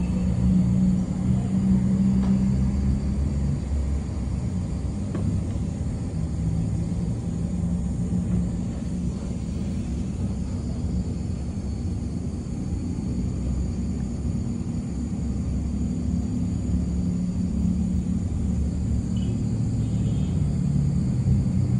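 Street traffic at a busy city intersection: a steady rumble of car, van and motorcycle engines. An engine hum swells as vehicles pass, strongest at the start and again near the end.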